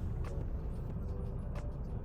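Car driving slowly on snowy roads, heard from inside the cabin: a steady low rumble of engine and road noise, with a couple of faint short clicks.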